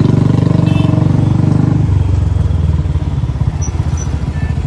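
Motorcycle engine running with a fast, even pulsing beat, heard from on the bike while riding through traffic; it gets gradually quieter about two seconds in.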